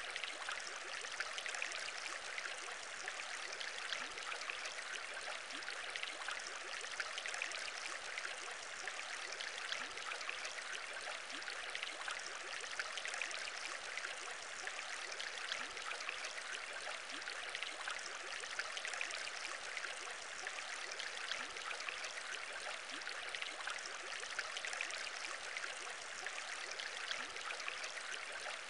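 Aquarium bubbles: a steady stream of many small bubbles bubbling and gurgling through water, with no pauses or changes.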